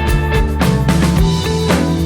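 Background music: a rock track with drum kit, bass and guitar over a steady beat.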